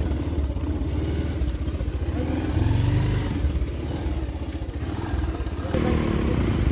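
Motorcycle engine running as the bike pulls away and rides along a dirt track, swelling with a rev about two and a half seconds in. Near the end a second motorcycle comes close alongside.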